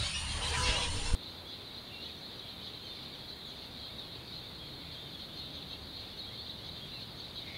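Calls of a heron colony for about the first second, cut off abruptly; then a steady high-pitched drone.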